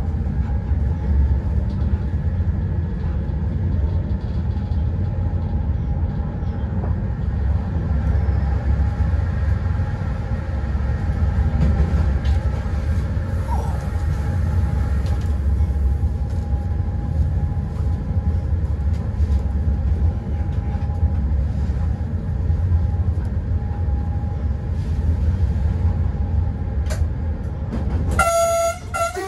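Steady low rumble of a Newag Dragon locomotive running along the track, heard from inside the cab. Near the end the locomotive's horn sounds in two short blasts.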